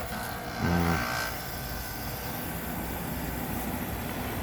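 A steady mechanical rumble, like an engine running, with a brief pitched sound under a second in.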